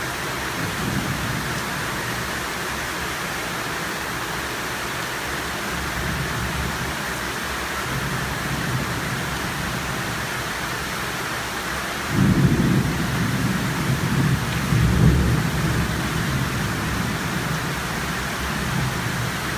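Tropical downpour falling steadily, with a low rumble of thunder breaking out suddenly about two-thirds of the way through and rolling on for several seconds.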